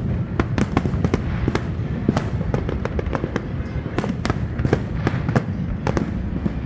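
Fireworks display: a rapid, irregular string of sharp bangs and crackles, several a second, over a continuous low rumble.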